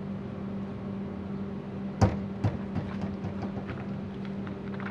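A 14-pound sledgehammer swinging on a hinge, released from a 50 mm pull-back, strikes a caravan's side wall with one sharp knock about two seconds in. A second, smaller knock follows half a second later, then a few faint taps, over a steady hum.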